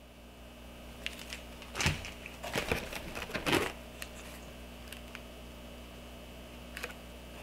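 A few light clicks and rustles of a plastic blister pack and cardboard as an item is lifted out of a box and handled, over a low steady hum.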